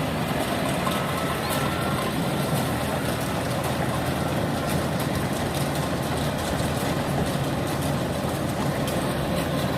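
Kubota DC70 rice combine harvester's diesel engine and threshing machinery running steadily while harvesting.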